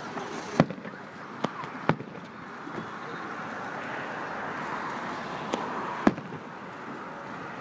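Fireworks going off: five sharp bangs of bursting shells, the loudest about half a second in and about six seconds in.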